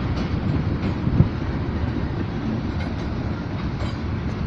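Freight cars of a long mixed freight train rolling past: a steady low rumble of wheels on rail, with a single sharp clack about a second in.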